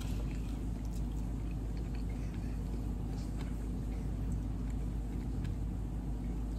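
A steady low rumbling hum that does not change, with faint soft clicks of chewing scattered over it.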